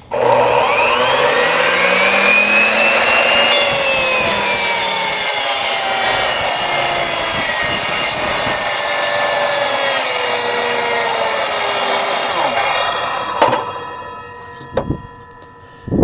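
Ryobi corded miter saw running on a pickup's 400-watt 120V bed outlet: the motor spins up with a rising whine for about three seconds, then cuts into a 2x4, its pitch sagging steadily through a long, slow cut as the motor bogs down on too little power. Near the end the cut finishes and the motor winds down.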